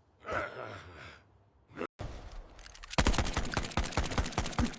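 A short breathy burst about half a second in. Then, from about three seconds in, a rapid, even rattle of sharp shots: cartoon machine-gun fire.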